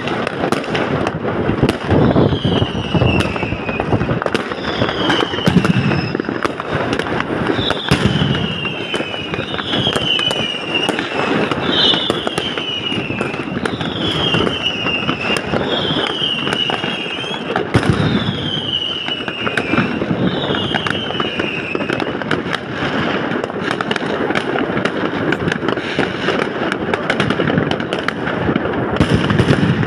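Fireworks going off all around: a continuous crackle of firecrackers and bursting rockets, with heavier booms every few seconds. Over the top, a high falling tone repeats about every second and a quarter for some twenty seconds, then stops.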